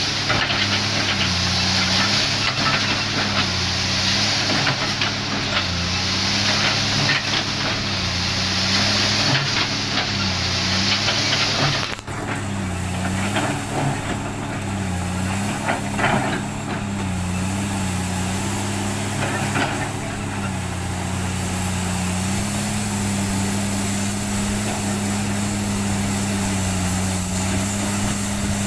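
Komatsu PC300 hydraulic excavator's diesel engine running under load, its pitch dipping and recovering every second or two as the hydraulics work, then holding steady near the end. A high hiss in the first part stops suddenly a little before halfway, and a few short knocks and rattles come after it.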